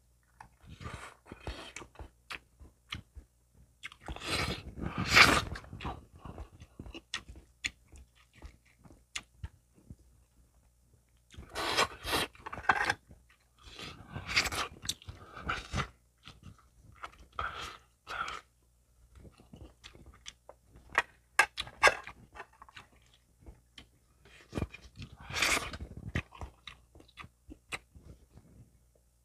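A person chewing and crunching cooked chicken close to the microphone, with wet mouth clicks throughout and louder crunching bursts every few seconds.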